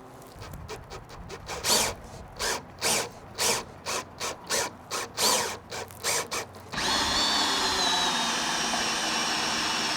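Hand drill driving a drill-powered wire stripper: the trigger is first pulsed in about a dozen short bursts, then held from about seven seconds in so the machine runs steadily with a high whine, pulling the thick cable through the blade and slitting its insulation.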